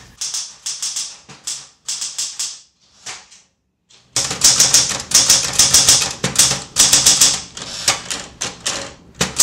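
Manual typewriter keys being struck: a few scattered strokes, a pause of about a second, then fast, steady typing.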